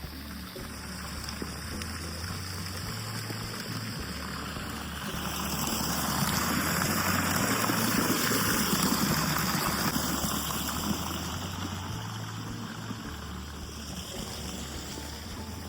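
A rushing noise that swells to its loudest in the middle and then fades away, over soft background music with slow, low bass notes.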